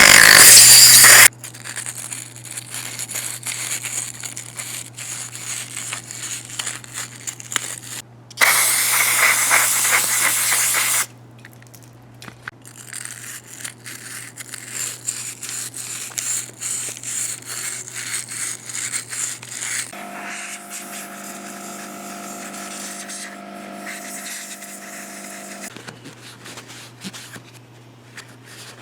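Aerosol carburetor cleaner sprayed in two long hisses onto a carburetor part, with a wire brush scrubbing it in scratchy strokes between and after the sprays. About 20 s in, a steady hum of several tones runs for some six seconds before the scrubbing resumes.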